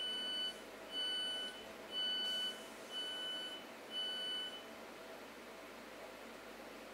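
Passenger train's door warning alarm, typical of doors closing before departure: five identical high beeps, each about half a second long, about one a second, then it stops.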